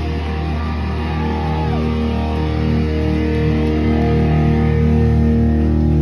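Live rock band music: loud distorted electric guitar chords held and ringing on over a steady low drone, with a few brief pitch bends and no clear drum beat.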